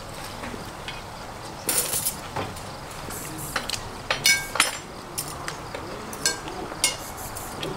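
Metal utensils and enamel dishes clinking and scraping as boiled meat is lifted out of a large aluminium stockpot into a dish: a series of short ringing clinks, the loudest about four seconds in.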